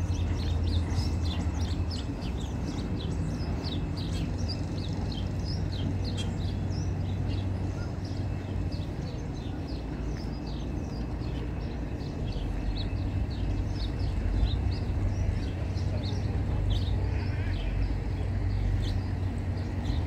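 Small songbirds chirping over and over, many short high calls throughout, over a steady low rumble.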